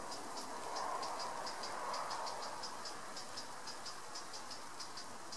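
An insect chirping in the grass: a quick, uneven series of short, high ticks, about four a second.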